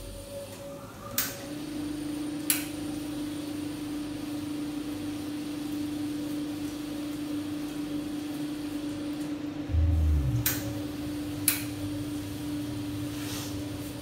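Fracino Contempo espresso machine's pump starting after a group's dose button is pressed and then running with a steady hum as water is delivered to the group head. Several sharp clicks are heard, and a short low thud comes about ten seconds in.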